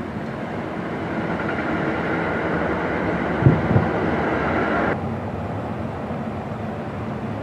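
Distant aerial fireworks shells bursting as two short, low booms about halfway through, over a steady rushing background noise that drops off suddenly a little later.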